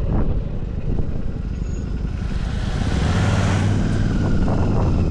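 Royal Enfield Super Meteor 650 engine running at low speed in stop-and-go traffic, its steady low drone growing a little stronger past the middle, with a short rush of noise about three seconds in.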